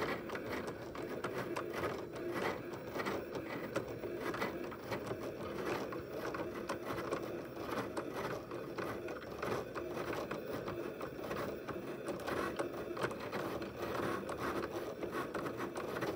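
Cricut electronic cutting machine cutting cardstock: its motors whir steadily as the blade carriage travels, with many quick small ticks throughout.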